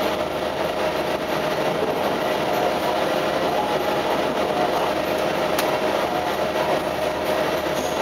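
Adelaide Metro 3100-series diesel railcar running along the line, heard from inside near the front: a steady noise of wheels and motor with a faint humming tone, and a single sharp click about five and a half seconds in.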